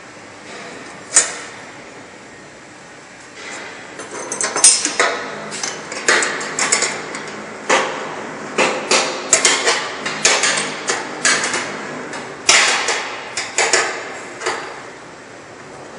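Sharp knocks and clatters on the steel parts of a horizontal flow-wrap packing machine's infeed conveyor as it is worked on by hand. There is one knock about a second in, then from about four seconds in a rapid, irregular run of a dozen or more that stops shortly before the end.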